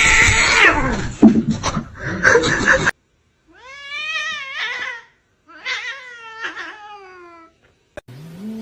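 A cat giving two long, drawn-out meows, each rising and then falling in pitch. Before them, for about the first three seconds, a loud jumble of noise that cuts off abruptly.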